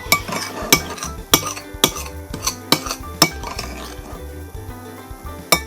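Spoon clinking against a bowl while fluffy slime of glue, contact solution and shaving cream is stirred. Sharp clinks come roughly every half second.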